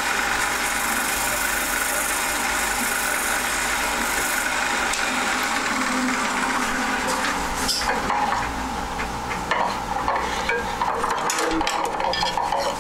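A wood lathe running with sandpaper hissing against the spinning wood of a bowl blank; the sanding stops about four and a half seconds in. The lathe then comes to a stop, with scattered light clicks and knocks from about seven seconds on.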